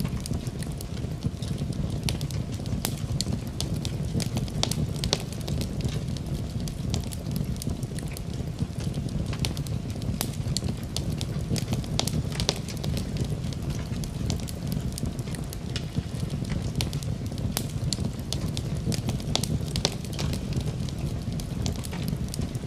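Wood fire burning in a fireplace: a steady low rumble with frequent sharp crackles and pops scattered throughout.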